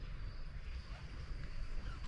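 Outdoor ambience: a steady, high insect chirring over a low rumble.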